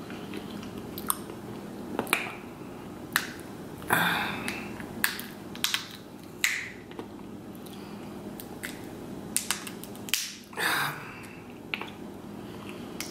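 Cooked lobster shell cracking and snapping as it is broken apart by hand: sharp snaps at irregular intervals, with a few longer wet crackles between them.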